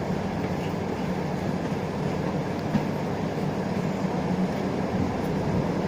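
Isuzu Erga LV290 city bus running, heard from inside the passenger cabin: a steady low diesel engine hum under road noise.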